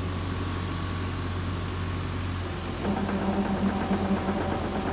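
Kubota KX71-3 mini excavator's diesel engine running while its rubber track turns over the freshly replaced rollers, running smooth with no creaking from the retensioned undercarriage. About three seconds in, an uneven, pulsing rumble joins the steady engine hum.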